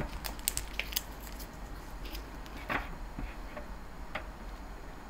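Gloved hands handling plastic icing piping bags over a cookie: a cluster of small clicks and crinkles, then a few single ticks.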